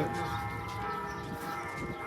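Cathedral bells ringing, several tones sounding together and ringing on.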